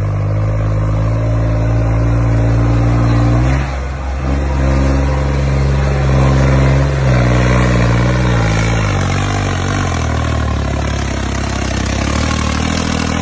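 New Holland tractor's diesel engine working under load as it pulls a loaded trolley. The engine speed drops briefly about four seconds in and shifts up and down again a few seconds later.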